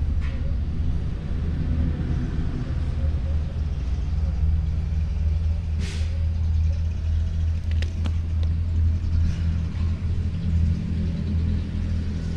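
Isuzu 4HK1 four-cylinder diesel engine idling steadily with an even low hum, with a couple of brief clicks about six and eight seconds in.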